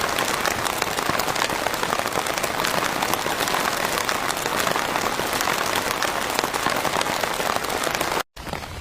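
Heavy rain falling on a pop-up camping trailer's roof, a dense steady hiss of drop impacts, which cuts off abruptly near the end.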